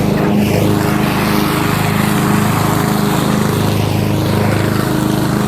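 Lawn mower engine running steadily and loud, close to the microphone.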